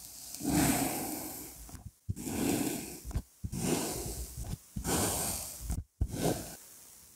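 Kinetic sand crunching and squishing as a plastic press tool is pushed down into a sand sphere and crushes it flat, in about five separate pushes with short pauses between.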